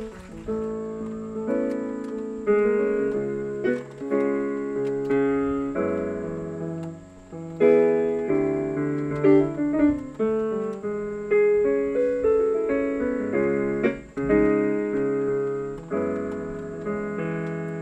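Keyboard playing a slow run of piano-toned chords, each struck and left to ring and fade, as the song's instrumental intro.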